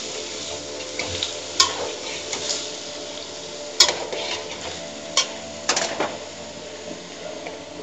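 Chopped spinach sizzling in hot oil in a metal pot as it cooks down and gives up its water. It is stirred with a slotted metal spoon that clinks sharply against the pot about four times.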